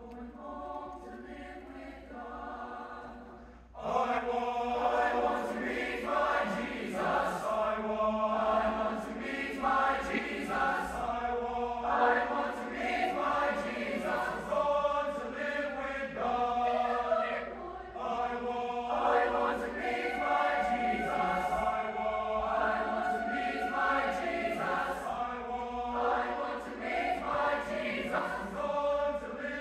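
A choir singing a spiritual in unaccompanied harmony. It is soft at first and swells to full voice about four seconds in, then keeps going strongly.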